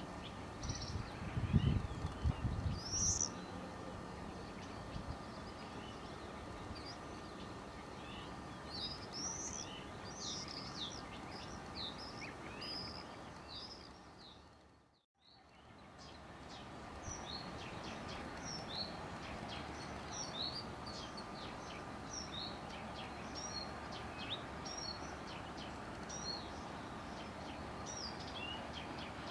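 Small birds chirping and singing continually over a steady outdoor background, with a brief low rumble a second or two in. The sound fades out and back in about halfway through.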